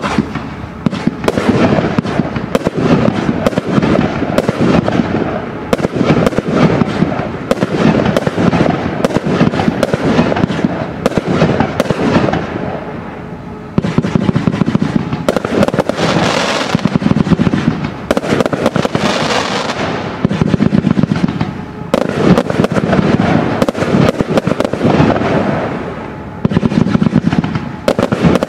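Absolute Fireworks 'Midtown Madness' firework going off: a dense, rapid run of firework shots, bangs and crackle. The firing pauses briefly a few times.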